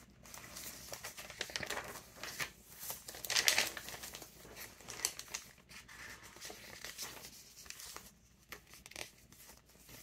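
Paper rustling and crinkling as the thick, mixed-paper pages of a chunky handmade junk journal are handled and turned. The loudest rustle comes about three and a half seconds in.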